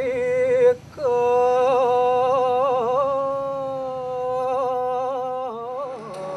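A solo voice singing: a short held note, a brief break, then one long held note with small ornamental wavers that slides down in pitch near the end.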